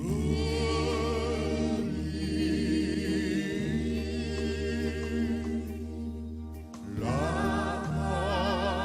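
Gospel choir singing held notes with vibrato over sustained low bass notes. The voices drop out briefly about seven seconds in, then come back in.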